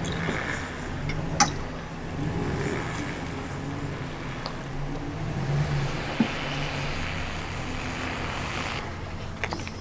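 Dodge Ram pickup's engine running at low speed as the truck slowly pulls a hitched travel trailer, with two short clicks about a second and a half and six seconds in.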